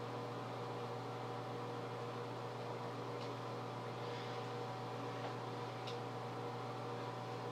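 Steady low hum and hiss of room tone, with faint brief soft squishes about three and six seconds in as shaving cream is scooped by hand from a pie tin.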